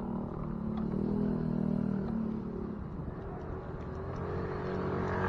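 A motor vehicle's engine running nearby, getting louder toward the end.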